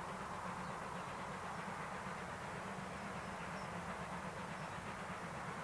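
Distant steam train heard as a steady, even rumble, with a few faint bird chirps over it.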